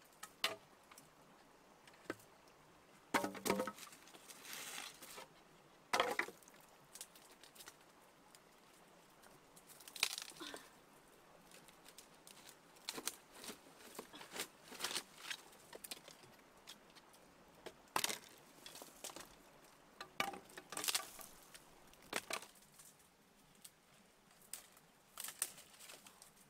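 Irregular crackling and rustling of dry leaf litter and twigs, with scattered clicks of small stones, from someone moving barefoot over rocks and rummaging among them.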